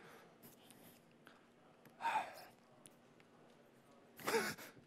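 A man's breathy, wordless sounds: a short sigh or exhale about two seconds in and a sharper breath near the end, with quiet room tone between.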